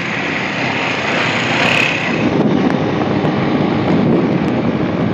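Small motorcycle engine running under way, with wind rushing over the microphone.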